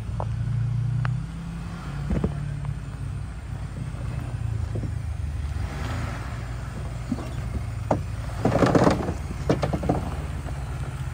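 Jeep Gladiator's engine running low and steady off-road, a little louder for the first second before settling. Over it come a few sharp knocks and, about eight and a half seconds in, a louder noisy rush.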